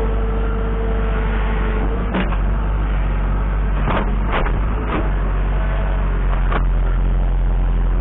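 Kubota L3750 tractor's diesel engine running steadily, heard close up from the front-end loader while it works, with a steady whine for the first two seconds. Sharp metal clanks from the loader and grapple bucket come about two seconds in and several more between four and seven seconds in.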